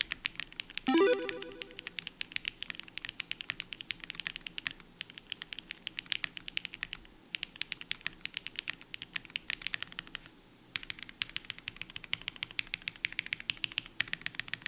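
Fast typing on a QK Cub65 65% mechanical keyboard built with the FR4 plate: a quick, dense run of keystrokes with a distinct pop and a slightly hollow sound, pausing briefly about two-thirds through. About a second in, a brief loud pitched tone sounds over the typing.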